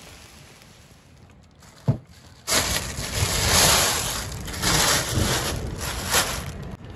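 A single thump about two seconds in, then a thin plastic bag crinkling and rustling in uneven bursts as it is pulled back off a basin of bread dough.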